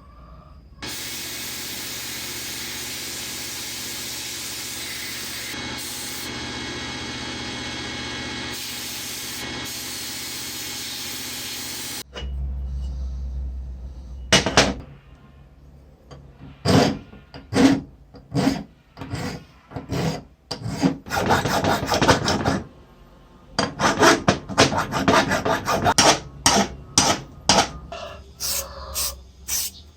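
Steady hiss for about eleven seconds that stops abruptly, followed by a short low hum. Then comes a series of uneven hand rubbing strokes, like filing or sanding back and forth on a part of a tile cutter being restored.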